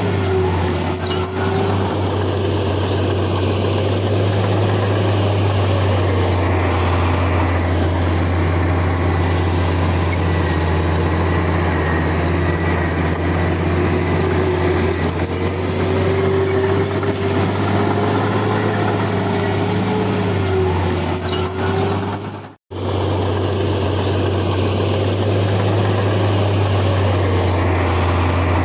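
Heavy diesel earthmoving machinery running steadily under work, a constant low drone with a wavering higher whine that rises and falls. The sound cuts out completely for a split second about three-quarters of the way through.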